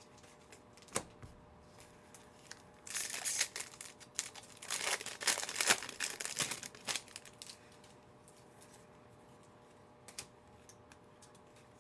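Foil trading-card pack wrapper crinkling and being torn open, in several seconds of rustling bursts, with a small click about a second in.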